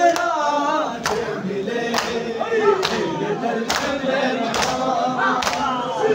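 A crowd of men chanting a noha (mourning lament) in unison. Many palms strike bare chests together in matam a little more than once a second, as sharp slaps.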